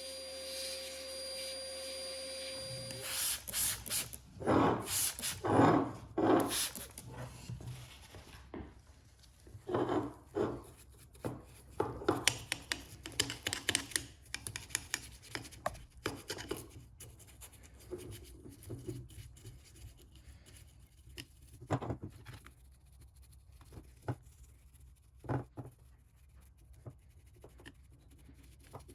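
A small electric motor hums steadily and stops about three seconds in; then come irregular rubbing and scraping strokes with short knocks, the sound of hand work on small metal and plastic parts, loudest in the first half.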